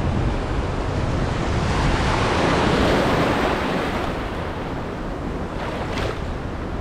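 Surf washing in, with wind rumbling on the microphone; the wash swells to a peak a few seconds in, then eases off.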